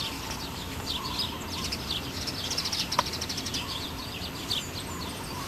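Small birds chirping, many short high chirps overlapping one another, with one short click about three seconds in.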